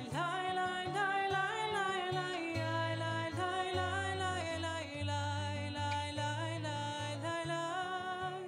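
A voice singing a melody to acoustic guitar accompaniment, part of the liturgical music of a Shabbat evening service.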